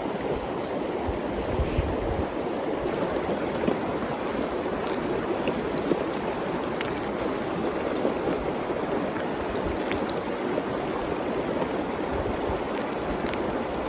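River water running steadily, a constant rushing hiss, with a few faint light ticks scattered through it.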